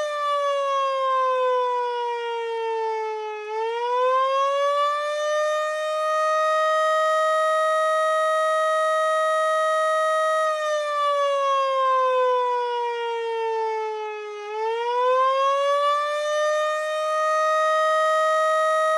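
Miniature Federal Signal STH-10 siren, driven by an induction motor on a 10 µF capacitor, sounding the attack signal. A steady wail twice sags in pitch as the motor is cut, once at the start and again about ten seconds in, and climbs back up as power is restored.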